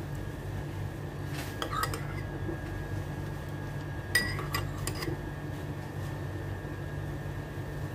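A metal spoon clinks and taps against a small ceramic bowl while scooping and spreading mayonnaise, in two short clusters of clinks, the sharpest about four seconds in. A steady low hum runs underneath.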